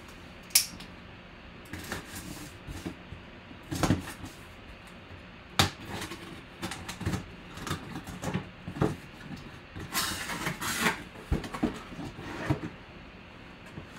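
Cardboard box being handled and opened by hand: scattered knocks, taps and scrapes of cardboard, with a longer rustling scrape about ten seconds in as the flaps open and the inner box is drawn out.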